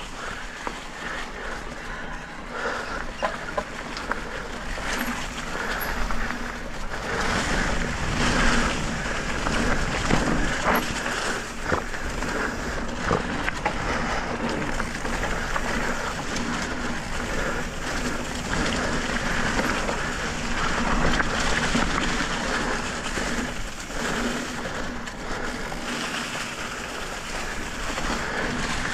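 E-mountain bike riding a dirt trail covered in dry leaves over loose gravel: a steady rushing noise of tyres on leaves and gravel and wind on the microphone, with scattered knocks and rattles from the bike over the rough ground.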